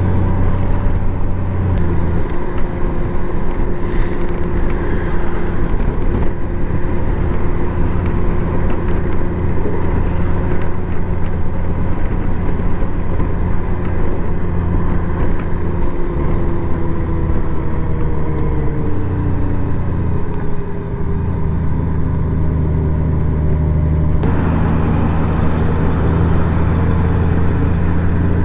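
Honda Gold Wing motorcycle cruising: a steady engine note under rushing wind and road noise, with the pitch drifting slightly now and then. The rushing hiss grows louder near the end.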